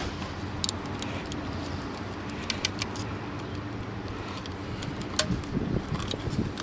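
Plastic electrical connector of a car-door wiring harness being handled and worked by hand: scattered light clicks and rattles. A low steady hum runs underneath.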